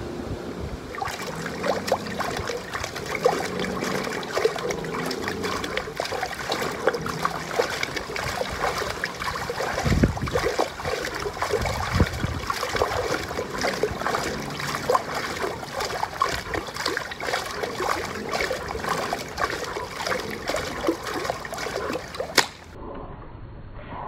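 Shallow water in an inflatable pool splashing and sloshing steadily as a person does jumping jacks in it. The splashing starts about a second in and cuts off suddenly near the end.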